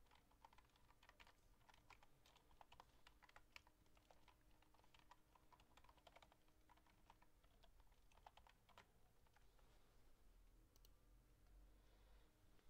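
Faint typing on a computer keyboard: quick, irregular key clicks that thin out after about nine seconds.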